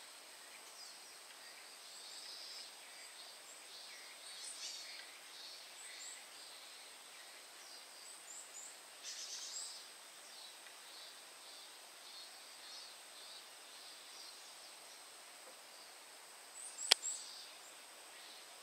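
Quiet garden ambience: faint, scattered bird chirps over a steady high-pitched whine, with a single sharp click about seventeen seconds in.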